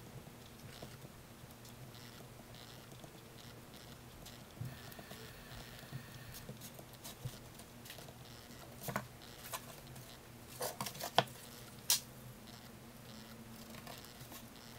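Quiet handling of a handmade notebook: hands rubbing and smoothing paper pages, with scattered small taps and a cluster of sharp clicks about two-thirds of the way through. A faint steady low hum sits underneath.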